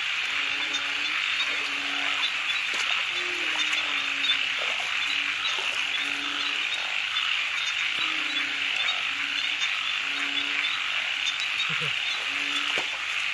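A chorus of narrow-mouthed frogs calling after rain: many short, low croaks repeating over and over, with a dense high-pitched chorus behind them.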